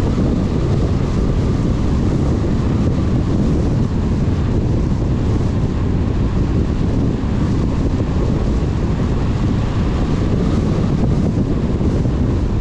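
Steady rumble of wind and road noise from a moving car.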